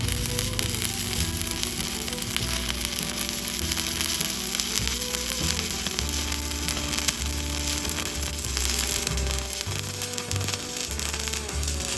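Stick-welding arc burning steadily on steel plate, a continuous dense crackle, over background music with a bass line.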